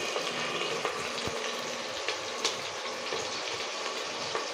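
Onions sizzling in hot oil in an open pressure cooker: a steady frying hiss with a few small crackles.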